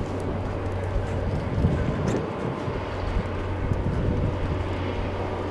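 The four CFM F108 turbofan engines of a Boeing KC-135R Stratotanker running steadily at taxi power as the tanker turns on the runway, a distant jet noise over a constant low hum.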